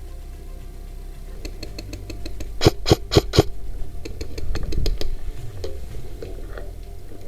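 Airsoft gunfire: a string of sharp clicks, with four loud shots in quick succession a little before halfway, among fainter shots.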